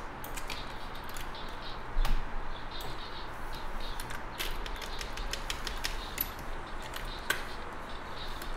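Scattered light clicks of a computer mouse and keyboard during digital painting, over a steady low hum. There is one louder low thump about two seconds in.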